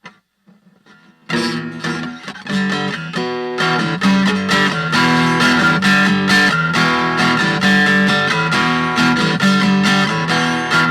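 Washburn WA45CEPAK steel-string electro-acoustic guitar strummed in rhythmic chords, starting loud about a second in after a faint few notes.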